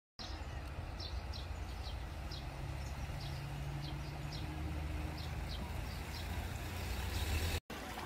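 Steady low engine hum from a vehicle, with a small bird's short high chirps repeating about twice a second over it. The sound cuts off suddenly near the end.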